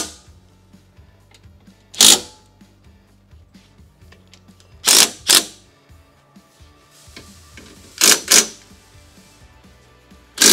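DeWalt cordless impact driver hammering in short bursts, one and then pairs a few seconds apart, as it snugs down bolts on a go-kart's tubular steel frame. The bursts stay brief so the thin frame tubes are not crushed by overtightening.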